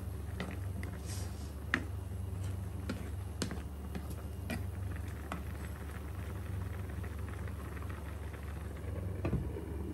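Wooden spatula stirring pork ribs in a simmering sauce in a nonstick frying pan: scattered clicks and scrapes against the pan, thinning out after the first half, over a steady low hum.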